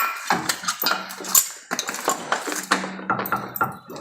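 Rapid, irregular metallic clinks and clanks of hand tools and metal driveshaft parts being handled during a driveshaft installation.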